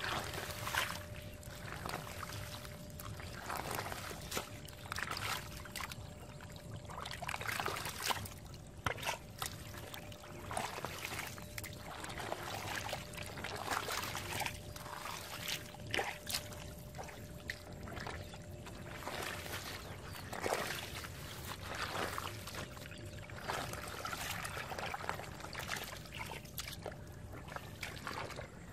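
Hands digging and scooping through wet paddy-field mud and shallow water, an irregular run of squelches, slops and small splashes.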